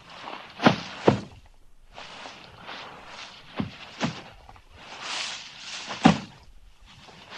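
Bodyfall sound effects: a person's body hitting the floor in a series of heavy thuds, two close together at the start, two lighter ones in the middle and a loud one near the end, with rustling and scuffing between the falls.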